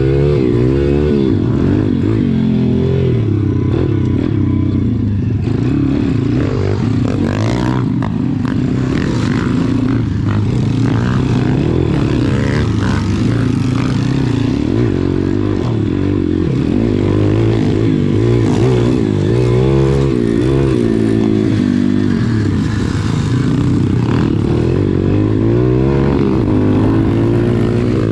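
SSR pit bike's small single-cylinder four-stroke engine ridden hard, its pitch repeatedly rising and falling with throttle and gear changes, with chassis clatter over the bumps.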